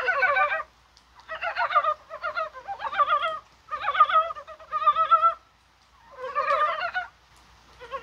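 Korean brown frogs (산개구리) calling in a chorus: about six bouts of quavering, clucking calls, each under a second long, with short pauses between.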